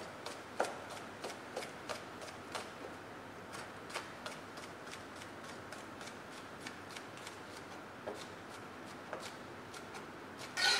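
Chef's knife slicing spring onions on a white cutting board: light, irregular knocks of the blade on the board, about two or three a second, with a louder clack near the end.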